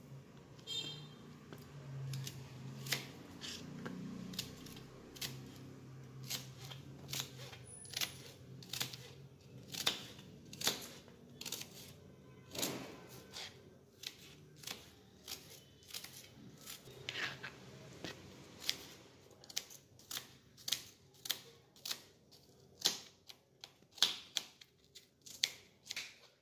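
Kitchen knife slicing red onions on a plastic chopping board: a sharp tap each time the blade goes through and meets the board, the cuts coming faster in the second half.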